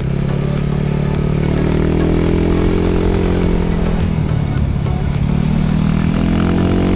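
Single-cylinder engine of a Yamaha Mio scooter bored up to 130 cc, running under way. Its pitch climbs as the throttle opens, drops back about four seconds in, then climbs again near the end.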